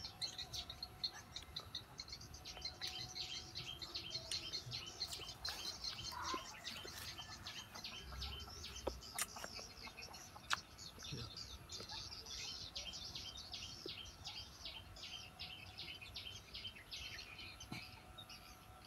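Small birds chirping in quick, continuous runs of short high notes, faint, with a steady high-pitched hum above them.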